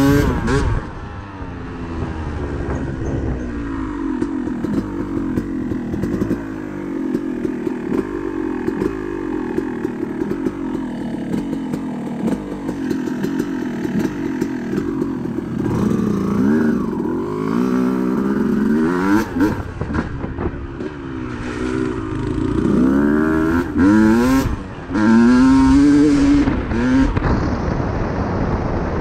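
Yamaha YZ250 two-stroke dirt bike engine running while being ridden. The revs rise and fall, with several quick climbs in revs in the second half.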